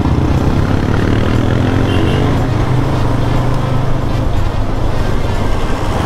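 Motorcycle engine running under steady wind noise on the microphone while riding; the engine note falls over the first couple of seconds as the bike eases off.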